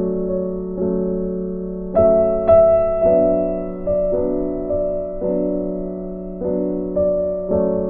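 Background music: a soft piano playing slow sustained chords, a new chord struck about every second and left to ring and fade.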